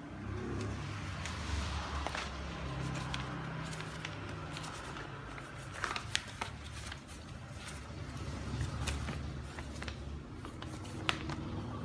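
A folded printed paper sheet being opened out and handled, rustling and crinkling with a few sharp crackles about six and eleven seconds in, over a steady low rumble.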